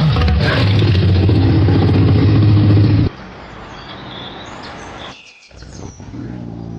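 A loud, steady vehicle engine sound with a low hum cuts off abruptly about three seconds in. Quieter birds chirping follow.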